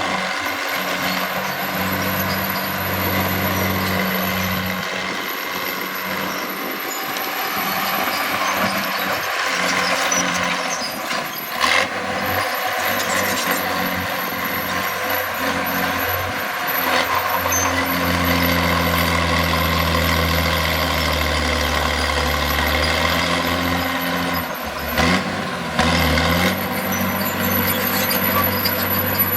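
Heavy diesel earthmoving machinery running steadily: bulldozer and dump-truck engines, with the engine note shifting and strengthening past the middle, as if under load. Two short, loud bursts of hiss cut in, once about twelve seconds in and again near the end.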